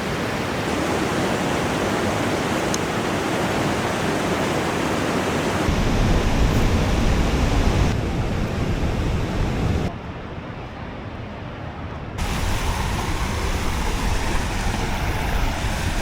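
Rushing white water of large river rapids, a steady loud roar. It changes abruptly several times: heavier and deeper about six seconds in, then quieter and duller for about two seconds around ten seconds in, then loud again.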